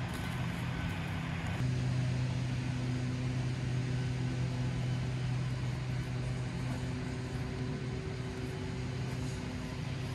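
An engine running steadily, a low hum with a few even tones over a background hiss; the hum grows louder about one and a half seconds in.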